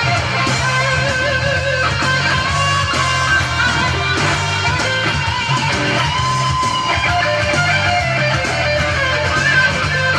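Gretsch G2622T Streamliner electric guitar playing melodic lead lines with wavering, vibrato-bent sustained notes, over a backing track with a steady bass line.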